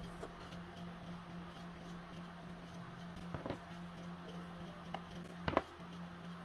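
Masking tape being handled and pressed onto a rubber balloon: faint rustling with a few short crackles and clicks, the loudest about five and a half seconds in, over a steady low hum.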